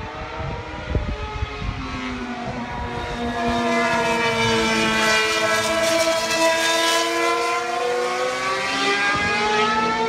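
Formula One race car engine at high revs, its note climbing steadily for several seconds as it accelerates, then levelling off and dipping a little near the end.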